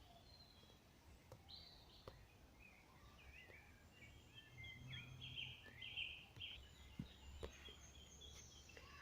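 Faint birdsong: several small birds chirping and trilling, busiest in the second half, over a low outdoor hum with a few light clicks.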